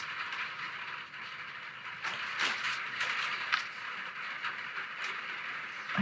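Steady rain, a continuous hiss with faint scattered taps, and a few light scratches of a fine-liner pen drawing on paper.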